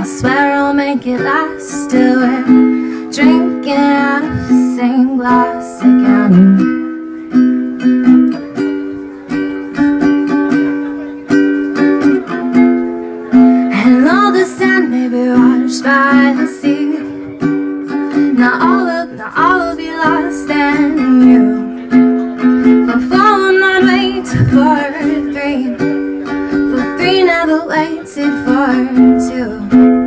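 Ukulele played solo, its plucked and strummed chords ringing and decaying in a steady rhythm, with a woman singing over it at times.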